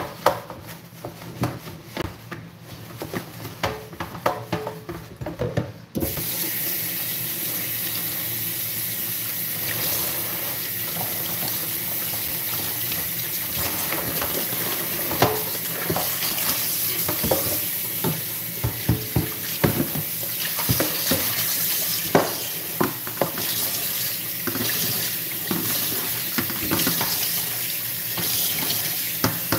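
Handling and knocking of plastic basins in a stainless steel sink, then a kitchen tap turned on about six seconds in and running steadily as a plastic basin is rinsed under it, with scattered knocks of plastic against the sink.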